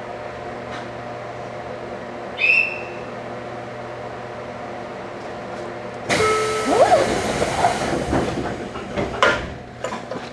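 Inside a JR Kyushu 813-series electric train: a steady hum of the car's equipment, a short high beep about two and a half seconds in, then about six seconds in a sudden loud rush of noise with a brief rising whine that fades over the next few seconds, with a few clicks.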